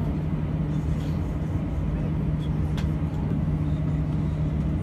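Steady low drone of an airliner cabin with the engines running while the aircraft holds on the ground, a constant low hum with a faint tick or two.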